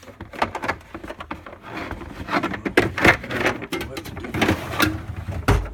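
Tools and toolbox drawers being handled: a run of metal clicks, clanks and rattles, ending in a heavy thump near the end.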